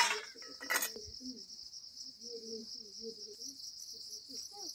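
Insects chirring in a steady, high, continuous drone, with faint voices talking underneath and two sharp knocks within the first second.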